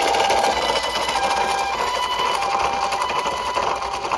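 Japanese ambulance two-tone 'pee-po' siren, a higher and a lower tone taking turns about every half second, over a fast steady rattle of toy cars' small wheels rolling.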